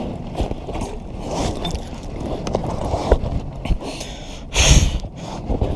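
Clothing and body rubbing and scraping against the vinyl of an inflatable kayak as the paddler shifts about in the seat, with scattered light knocks. A louder, brief scrape comes a little before the end.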